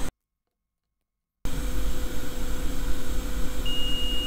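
After about a second of dead silence, a steady electrical hum and hiss; near the end a digital multimeter's continuity beep starts, one steady high tone, as its probes touch the removed capacitor: the capacitor is shorted.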